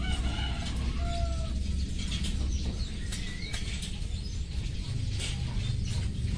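Small metal hand trowel scraping and poking through loose soil and roots in short, irregular scratches, with birds chirping a few short calls in the background and a steady low rumble underneath.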